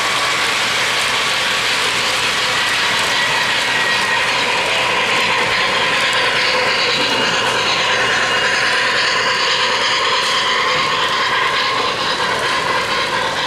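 O-gauge model trains running on Lionel FasTrack three-rail track: a steady, continuous rolling clatter of metal wheels over the rails and track joints as a passenger train and then a steam locomotive with hopper cars go by.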